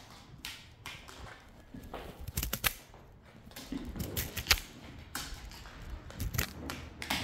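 Scattered light clicks, taps and rustles of plastic spring cat toys being unpacked and played with on a tile floor.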